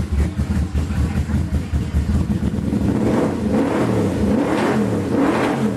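Yamaha V-Max's 1198 cc V4 engine idling, then revved up and back down several times in the second half.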